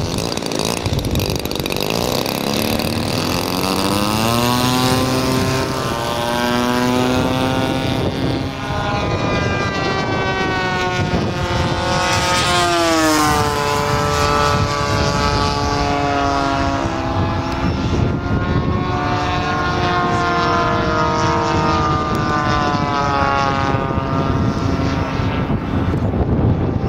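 Two model warbirds' single-cylinder two-stroke petrol engines, a DLE 20cc in a Hurricane and a DLE 35cc in a Spitfire, running at high throttle. Their pitch climbs in the first few seconds as they open up, and falls and rises as the planes pass overhead, with the sharpest drop about twelve seconds in.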